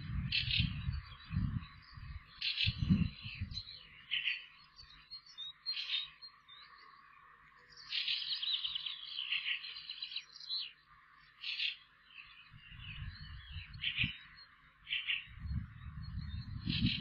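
Short, high chirping calls every second or two and a longer rattling trill about eight seconds in, from small animals around the nest, over low rumbling gusts of wind on the microphone near the start and again in the last few seconds.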